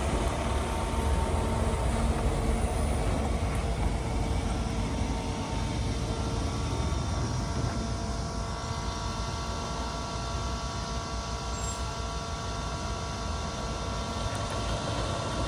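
A vehicle running steadily: a constant low rumble with faint steady tones above it.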